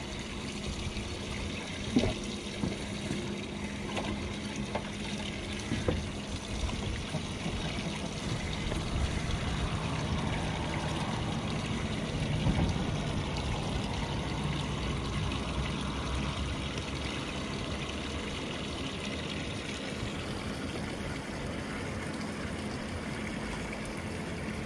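Lake water lapping and trickling against a fiberglass boat hull, under a steady low hum, with a few light knocks in the first several seconds.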